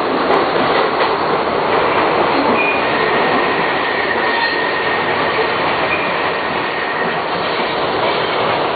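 Train running: a steady loud rumble, with a faint high squeal held for a few seconds in the middle.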